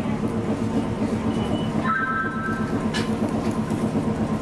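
Hankai Tramway tram running along the track, heard from inside the car: a steady low running hum from the motors and wheels. A brief high-pitched squeal comes about two seconds in, and a single knock about three seconds in.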